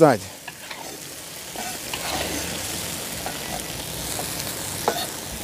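A pan of potatoes and porcini mushrooms in cream sizzling steadily on the heat, with one light clink near the end.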